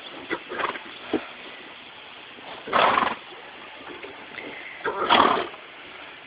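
Horses sneezing: short, noisy blows, a few small ones in the first second or so, then two loud ones about three and five seconds in.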